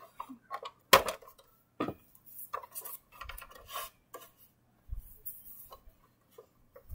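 Hands handling plush toys in a hard plastic Barbie toy car: scattered light taps and clicks on the plastic with soft rustling, and a sharper knock about a second in and another just before two seconds.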